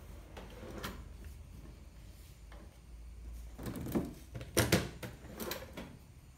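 Pliers and metal stringing tools clattering as they go into the plastic tool drawer under a stringing machine's control panel, and the drawer being pushed shut. A few light knocks early on, then a cluster of sharper clacks in the second half.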